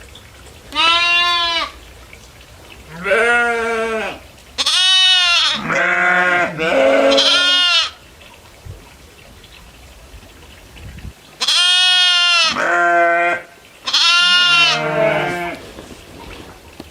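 Goats bleating, about eight loud calls, some high and some lower-pitched, each bending up and then down in pitch. The calls come in two bunches, one through the first half and one a little after the middle.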